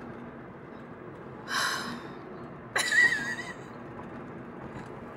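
A woman's breathy laughter in two short bursts, the second with a brief high squeal, over a steady hum of car cabin road noise.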